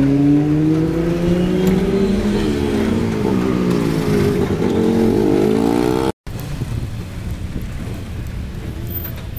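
A motor vehicle engine running, its pitch rising slowly over a few seconds as it accelerates, then wavering. It cuts off abruptly about six seconds in, and a quieter, steady engine hum follows.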